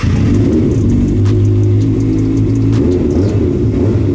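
2024 Kawasaki Ninja ZX-6R (636) inline-four engine running at idle through an Akrapovič full-system exhaust, loud and steady, its pitch lifting briefly a couple of times.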